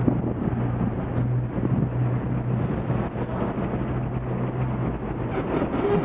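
A vehicle engine idling with a steady low hum, under a wash of traffic and wind noise.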